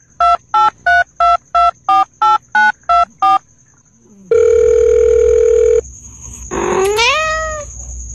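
Telephone keypad dialling tones: about eleven quick two-note beeps in a row. These are followed by a steady phone tone lasting about a second and a half, then a short call that rises in pitch near the end.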